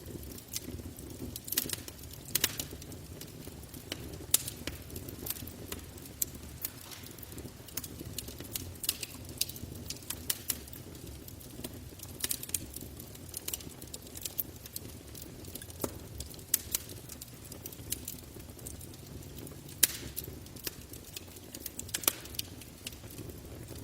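Campfire crackling: irregular sharp pops and snaps of burning wood over a low, steady rumble of flames.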